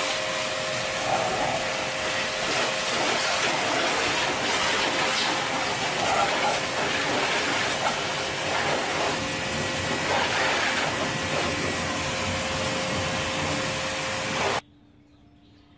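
Hiroma pressure washer running, its high-pressure water jet spraying against a car's side panels and the wet concrete floor: a steady hiss with a steady hum under it. It cuts off suddenly near the end.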